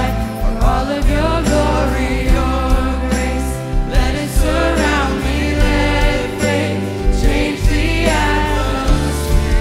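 Live worship song: a girl sings the lead into a microphone over a band with drums and piano, and a youth choir sings with her.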